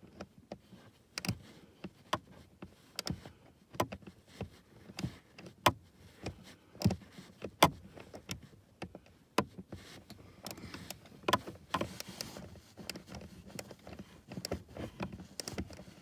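Irregular sharp clicks and knocks of a ratchet and short socket being worked by hand on the heater blower motor's mounting bolts up under the dash.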